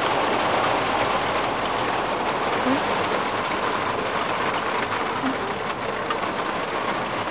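Hail and rain hitting an overhead glass skylight, heard from underneath: a dense, steady patter of countless small impacts.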